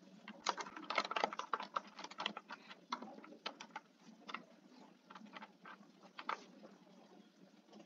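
Computer keyboard typing: a quick flurry of key clicks in the first couple of seconds, then sparser keystrokes that die away about six and a half seconds in.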